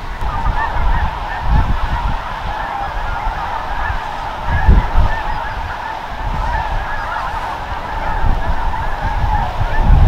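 A huge flock of geese, mostly snow geese, calling all at once in a dense, continuous din of overlapping honks and yelps. A few low rumbles come through underneath, the strongest about halfway through.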